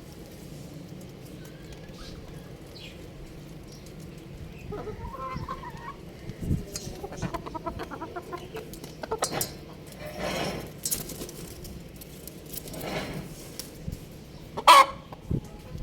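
Young rooster clucking and calling in a string of short calls, with a wavering call about five seconds in. A sharp, loud short squawk comes near the end.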